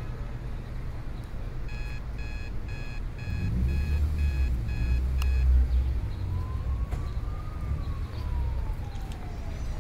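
A run of about eight electronic beeps, two a second, over a low rumble that swells about halfway through. Later a faint tone slowly rises and then falls.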